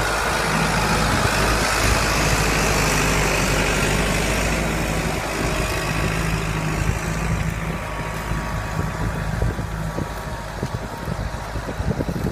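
John Deere 5725 tractor's diesel engine running steadily under load while pulling a plough. The engine gets fainter after about halfway, and wind buffets the microphone near the end.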